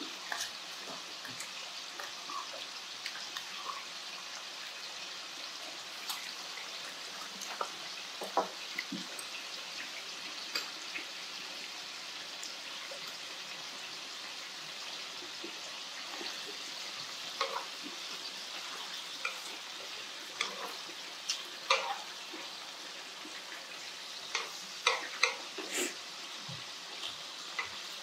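Sliced duck sizzling steadily in a pan as it grills in its own juices, with scattered light clicks and taps that come more often near the end.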